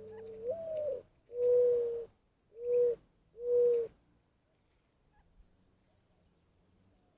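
Dove cooing: a first coo that rises and falls, then three steady, even-pitched coos, the first of them the longest.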